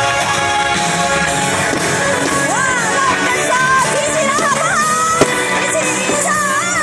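Pop song with a singer's voice entering about two and a half seconds in. A single sharp bang cuts through about five seconds in.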